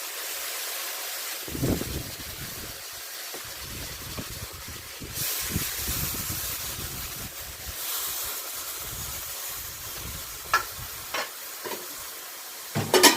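Chicken back frying in hot oil in a Dutch pot, a steady sizzle that grows brighter about five seconds in. Wind rumbles on the microphone, and a few short clinks come near the end.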